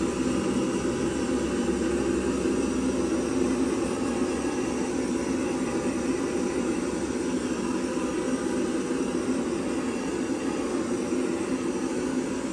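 Handheld butane torch burning with a steady hiss as it is played over wet acrylic paint.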